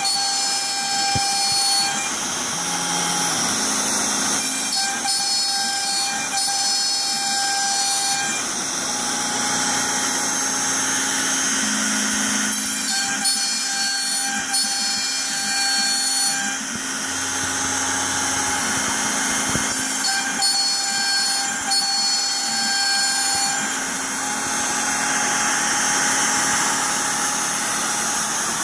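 Shapeoko XXL CNC router milling holes in an MDF waste board: the router spindle runs at high speed with a steady high whine, over lower tones from the machine that shift every few seconds as it moves and cuts.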